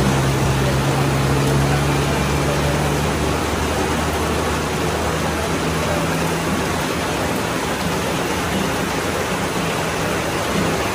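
Heavy rain hissing steadily on a wet road. Under it is a low engine drone from the climbing traffic, strongest in the first three seconds.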